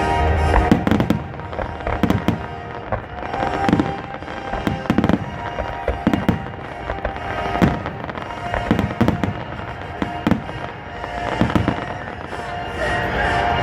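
Fireworks shells bursting one after another, about one a second, sharp bangs and cracks with booming low ends, over music playing underneath.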